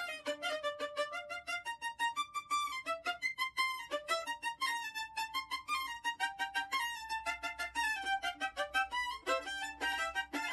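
Background violin music: a violin playing quick runs of short notes that step up and down several times a second.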